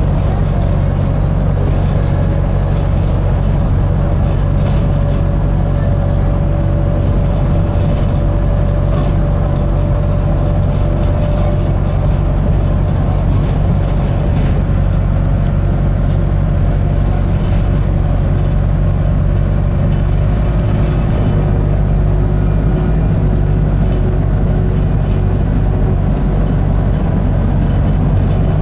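Inside a New Bus for London diesel-electric hybrid double-decker on the move: a steady low hum from the drivetrain with road noise, and a faint whine that rises gently over the first ten seconds or so.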